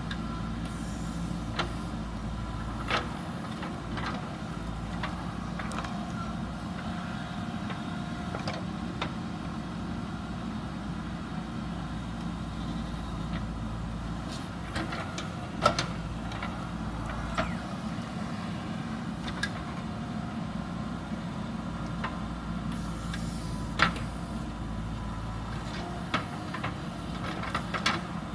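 JCB backhoe loader's diesel engine running steadily as the machine works, with scattered sharp knocks, the loudest about halfway through and again about two-thirds of the way in.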